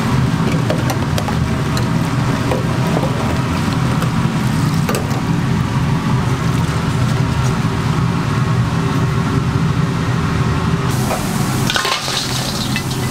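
Potato chips deep-frying in hot oil, a steady sizzle with scattered clicks over a low steady hum. About twelve seconds in, the fried chips tumble out of a wire fryer basket into a stainless steel bowl with a short rustling clatter.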